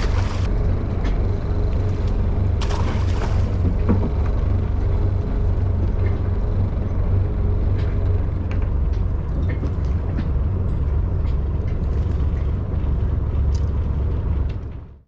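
Steady low engine rumble with a few light clicks, fading out at the very end.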